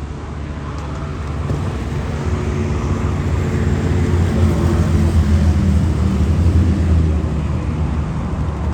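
A motorcycle engine running at low, steady revs, growing louder over the first five seconds or so.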